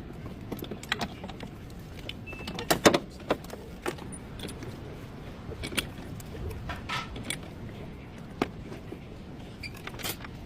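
Irregular metallic clinks and knocks of hand tools and car parts being worked, the loudest few about three seconds in, over a steady background noise.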